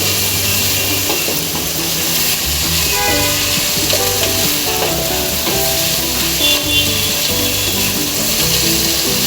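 Shrimp and cabbage stir-frying in a pan, sizzling steadily, with background music underneath.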